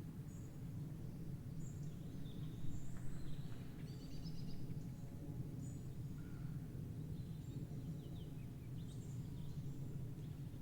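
Songbirds chirping in short, scattered high calls and quick falling notes over a steady low background rumble.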